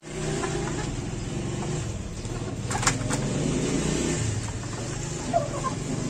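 A steady low mechanical rumble like a running engine, over faint hens in a coop. A sharp click comes about three seconds in and a short chirp near the end.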